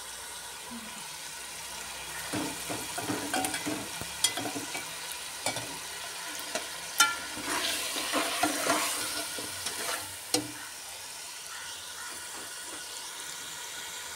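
Chicken, peas and potatoes frying in masala in a metal pot, with a steady sizzle. A steel spatula stirs the mixture, its scrapes and knocks on the pot coming in clusters from about two seconds in until about ten seconds in.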